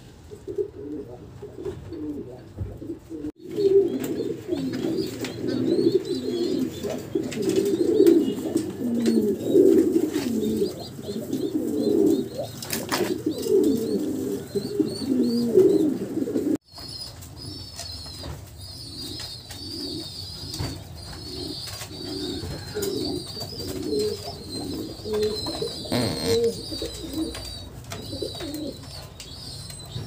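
Domestic pigeons cooing, with dense, overlapping coos loudest in the first half. After a cut about 17 s in, the cooing turns softer and steadier at one or two coos a second, with thin high peeping above it.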